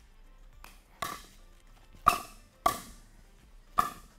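Pickleball rally: about five sharp pocks of paddles striking the plastic ball and of the ball bouncing on the court, irregularly spaced, with the loudest about two seconds in.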